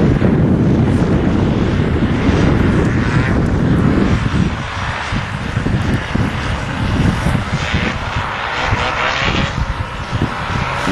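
Paramotor engine and propeller running as a powered paraglider flies past, loudest for about the first four seconds and then easing off a little.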